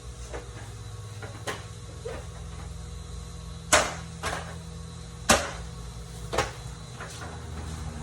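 Knocks and clicks of the dehumidifier's plastic parts being handled and fitted back together: two sharper knocks a few seconds in and several lighter ones, over a steady low hum.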